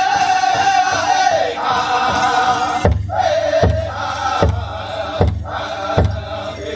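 Powwow drum group singing a men's chicken dance song in high voices over a big drum. About three seconds in, the drum comes in with loud, evenly spaced beats a little faster than one a second under the singing.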